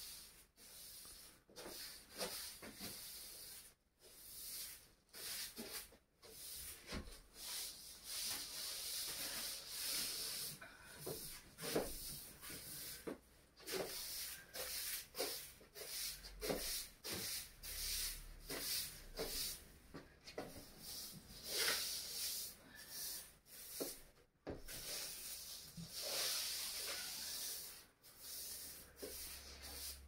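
Straw hand broom sweeping a laminate floor: short brushing swishes repeated in an uneven rhythm.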